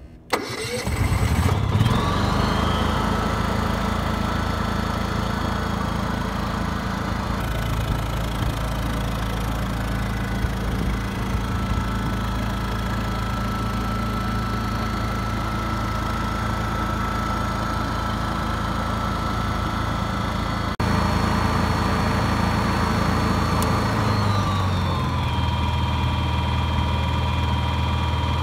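Honda EU7000iS inverter generator's single-cylinder engine starting about half a second in, climbing quickly in speed, then running steadily. A click comes about 21 seconds in, and a few seconds later the engine settles to a slightly lower speed, its pitch falling a little.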